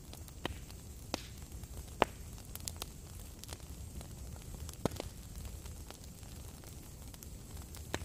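Wood fire in a fireplace crackling: a few scattered sharp pops over a low steady background, the loudest pop about two seconds in.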